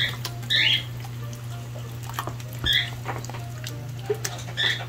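Creamy chicken-and-vegetable mixture being poured from a pot into a stainless steel roasting pan, with soft plops and light clinks, while a dog whines in short high squeaks about four times. A steady low hum runs underneath.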